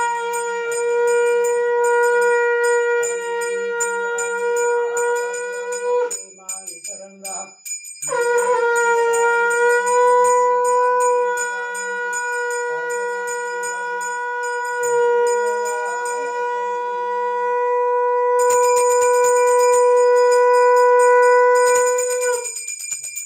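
A conch shell (shankh) is blown in two long, steady notes. The first breaks off about six seconds in, and the second starts about two seconds later and is held until near the end. A small brass hand bell rings rapidly throughout.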